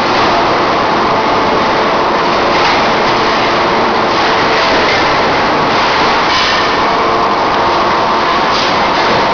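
Steady, loud machinery noise of a spot-welding production line, with brief hisses every second or two.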